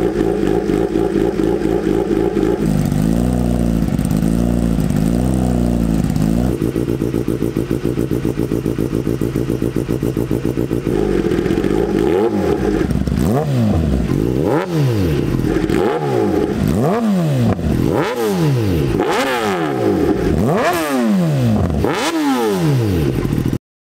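Kawasaki ZX-10R inline-four sport bike engine running through an aftermarket exhaust, idling with a few gentle swells in pitch, then from about halfway blipped repeatedly, about once a second, each rev rising sharply and dropping straight back.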